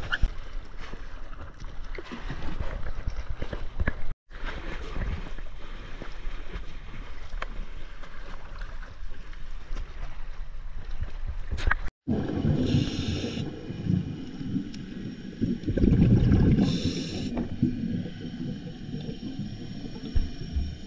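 Water gurgling and sloshing around a camera in and at the surface of a lake, breaking off twice briefly, with two short bursts of bubbling in the second half.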